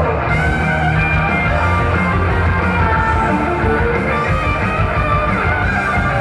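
Upbeat pop-rock song in an instrumental passage without vocals: electric guitar over a driving bass and beat.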